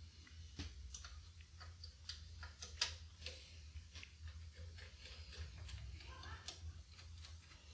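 Faint, irregular small clicks and taps of hands and parts working an Ethernet card loose inside a compact Macintosh's case, with one sharper click a little under three seconds in, over a steady low hum.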